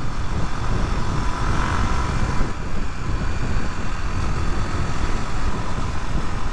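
Suzuki DR250S single-cylinder motorcycle under way at a steady speed, its engine running beneath a heavy, even rumble of road and wind noise.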